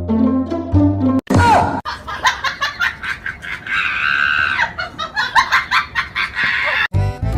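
A short stretch of music, cut off about a second in by about five seconds of loud, shrill screaming and cackling cries, with music coming back near the end.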